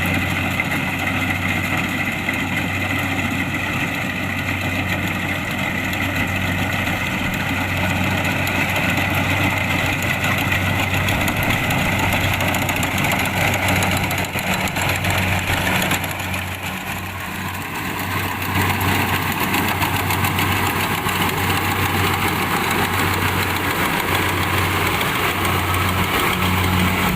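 Kubota DC-70 Plus rice combine harvester's diesel engine and harvesting machinery running steadily, with a brief drop in level a little past the middle before it picks back up.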